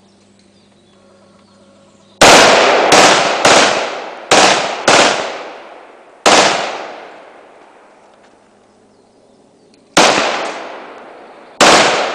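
FAMAS 5.56 NATO bullpup rifles fired as single shots: about eight loud cracks at uneven spacing, each followed by a long fading echo. The shots begin about two seconds in, come in a quick run of five, then one more, and after a pause two more near the end.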